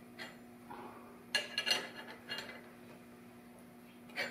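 A gear puller and steel transmission parts clinking and tapping together as the puller is fitted on a manual transmission's main shaft. There are a few sharp, ringing metallic clinks, several in quick succession about a second and a half in, and another near the end.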